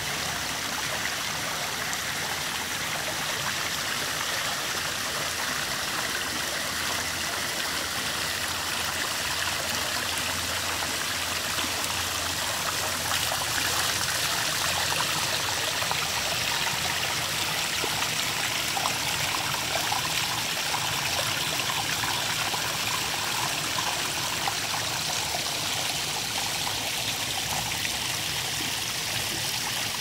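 Small waterfall splashing and trickling over rocks, a steady rush of running water. It grows slightly brighter and hissier about halfway through.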